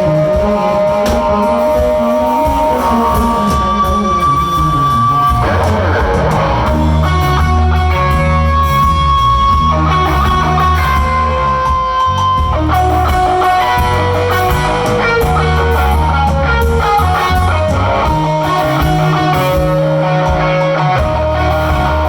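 Live rock band playing an instrumental passage: electric guitar lead lines over bass guitar and drums, loud and continuous.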